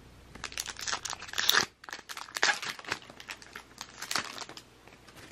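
Upper Deck hockey card pack wrapper being torn open and crinkled by hand, a run of crackling rustles with a brief pause about two seconds in.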